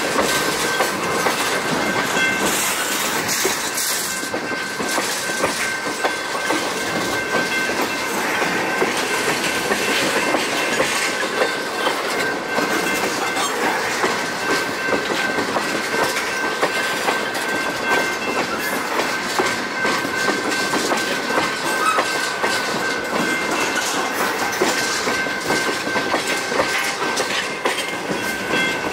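Freight train of tank cars rolling past at trackside: steel wheels clicking over the rail joints as the cars rumble and rattle steadily, with a thin steady high tone running underneath.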